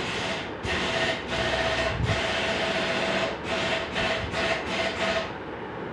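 Handheld electric impact gun running in short on-off runs of about half a second to a second each, driving in the engine-cover bolts. The runs stop about five seconds in.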